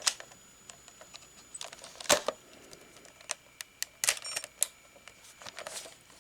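Handling of a Sony CCD-TRV99 Hi8 camcorder: scattered sharp plastic clicks and knocks from its body and controls, the loudest about two seconds in and a quick cluster around four seconds.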